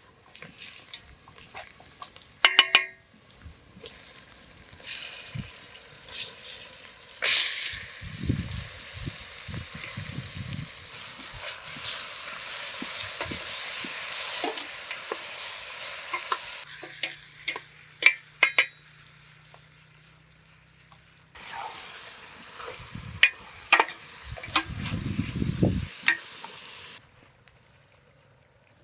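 Food frying and sizzling in hot oil in a cooking pot while it is stirred, with sharp clicks and scrapes of the utensil against the pot. The sizzling cuts off abruptly a little past halfway and comes back a few seconds later.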